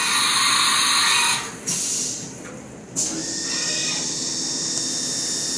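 Haas CNC milling machine machining aluminium: a loud rushing noise for about a second and a half, then, after a sharp start about three seconds in, a steady sound with a high-pitched whine.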